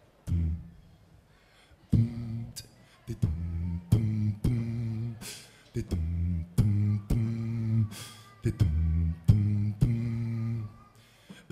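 Beatboxing: a man's voice making a rhythmic line of short, low bass notes, each about half a second, broken up by sharp mouth clicks and a hiss, into a microphone for a live vocal loop.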